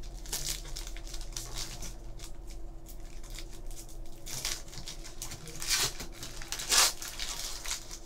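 Foil wrapper of a Topps Chrome baseball card pack crinkling and tearing as it is peeled open by hand. There are a few louder rips between about four and seven seconds in.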